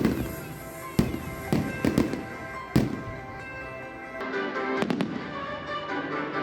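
Fireworks going off over music: several sharp bangs in the first three seconds, then lighter crackles about five seconds in.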